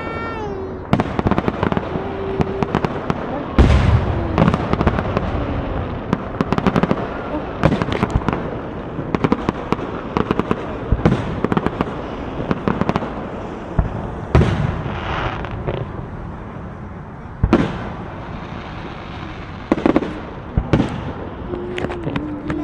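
Fireworks and firecrackers going off in quick succession: a constant crackle of bangs and pops, with a heavy boom about three and a half seconds in and further sharp bangs every few seconds after.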